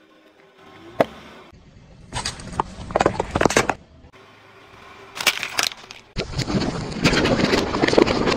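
Car tyres rolling over and crushing objects such as plastic bottles and cans. There is a sharp crack about a second in, then bursts of crackling and crunching, and from about six seconds on a dense, continuous crackling crunch.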